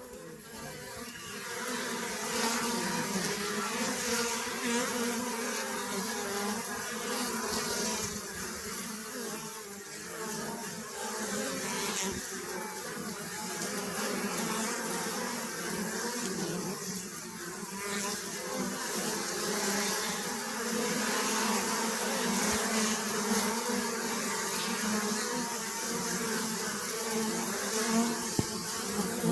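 Many bees buzzing together in a steady, continuous hum that swells and eases slightly.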